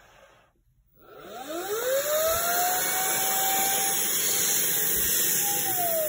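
Brigii M1 handheld vacuum's motor, run in blow mode to inflate an inflatable float through its valve: it spins up with a rising whine about a second in, runs steadily, and begins winding down with a falling whine near the end.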